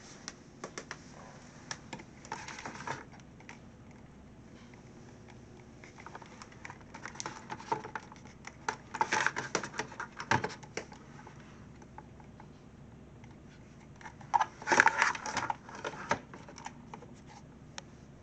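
Irregular bursts of clicking and rattling, as of something hard being handled, loudest in three clusters early, midway and near the end, over a faint steady hum.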